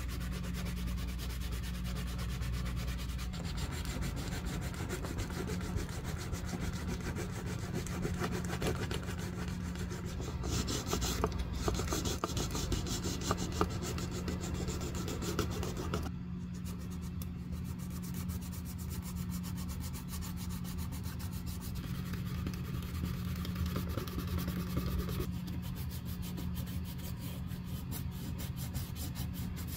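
Small strip of sandpaper rubbed by hand along the edge of a leather bag strap, making a dry, scratchy rasp. It is sanding off sticky, melted edge coat before the edge is refinished.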